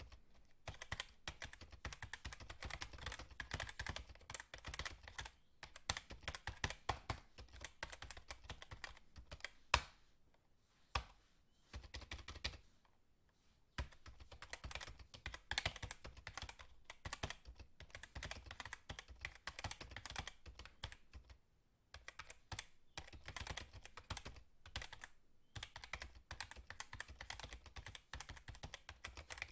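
Fast typing on a computer keyboard: quick runs of key clicks broken by short pauses, with a longer break about a third of the way in and one sharper key strike just before it.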